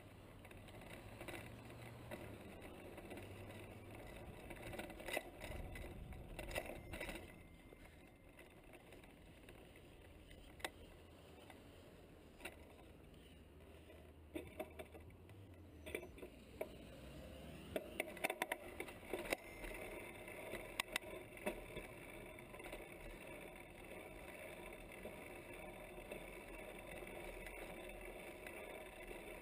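Faint riding noise from a mountain bike, a low rumble and hiss, with scattered sharp clicks and rattles that come thickest a little past the middle.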